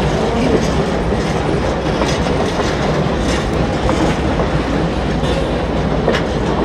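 Railroad passenger coaches rolling past close by: a steady rumble of wheels on the rails with occasional sharp clicks and clanks.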